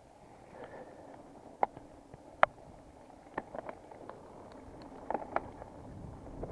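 Mountain bike ridden along a trail: rolling tyre and wind noise growing steadily louder, with several sharp clicks and knocks from the bike, the loudest two about a second and a half and two and a half seconds in.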